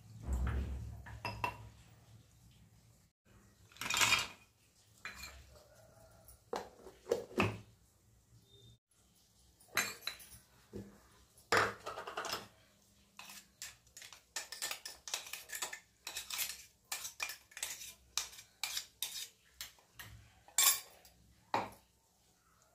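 Stainless steel kitchen bowls and utensils clinking and knocking on a stone counter: a low thump right at the start, then many irregular sharp clinks, the loudest about 4, 12 and 21 seconds in.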